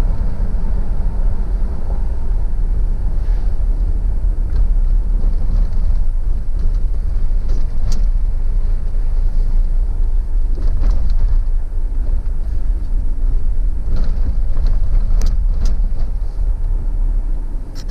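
Steady low rumble of a car driving on a winding road, heard from inside the cabin, with scattered light clicks and rattles in the second half.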